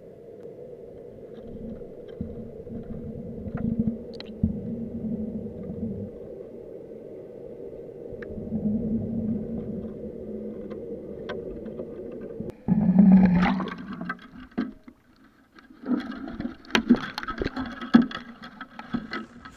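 Muffled sound picked up by an underwater camera in its housing on a fishing rig: a steady low hum with a deeper rumble that comes and goes. A little past halfway it turns louder, with irregular knocks and rattling as the rig is hauled up toward the surface.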